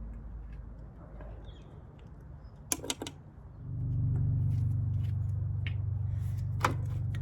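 Sharp metallic clinks of tools and parts a little under three seconds in, then a steady low hum that starts about three and a half seconds in and holds. One more single clink comes near the end.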